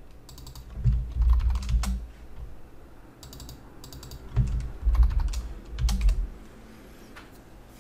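Typing on a computer keyboard: several short bursts of keystroke clicks, with dull low thumps among them.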